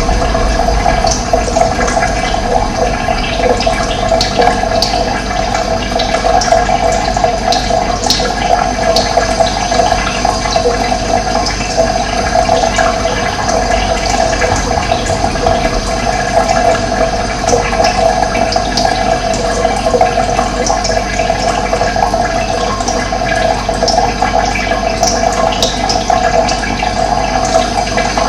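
Running water flowing steadily, a continuous even rush of moving water.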